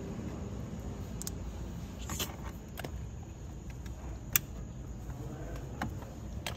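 Small clicks and taps of wiring connectors and plastic being handled under a car's steering column, about six of them scattered, the sharpest about four seconds in, over a steady low rumble.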